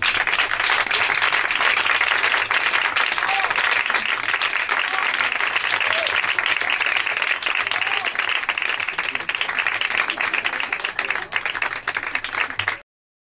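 Audience applauding: dense, even clapping that cuts off abruptly shortly before the end.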